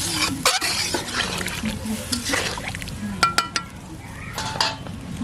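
A metal utensil knocking and scraping against a cooking pot several times, with a ringing clink about three seconds in.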